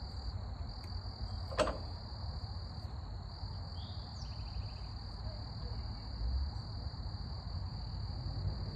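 Steady high-pitched insect chorus throughout, over a low outdoor rumble, with one sharp click about a second and a half in from the hand work at the mower's fuel line.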